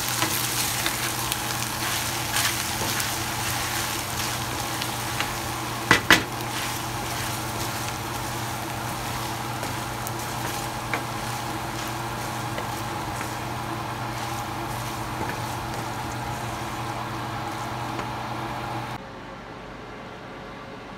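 Mutton qeema pasta sizzling in a metal pan as it is stirred with a wooden spoon, with two sharp knocks of the spoon against the pan about six seconds in. The sizzling cuts off sharply near the end, leaving a quieter steady background.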